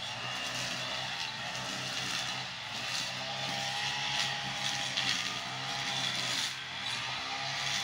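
Two-stroke brush cutter engine running fast while its blade cuts through weeds and grass, the pitch rising and falling as the throttle and load change, with a few sharp swishes as the blade strikes the growth.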